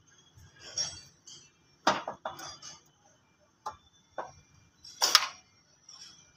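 Hand tools and metal engine parts clinking and knocking, with a few short scrapes, as a mechanic works by hand on a tractor's diesel engine around the turbocharger. The clinks come irregularly, the loudest about five seconds in.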